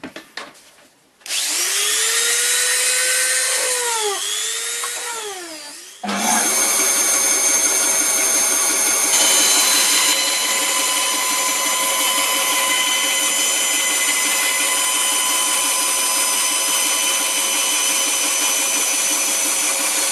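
A power tool's electric motor starts about a second in, its pitch sagging and recovering several times as it is loaded, then stops abruptly. Straight after, a steady high whine with many overtones runs at an even speed.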